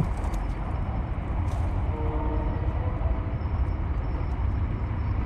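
Steady low outdoor rumble, with a faint pitched tone about two seconds in that lasts around a second.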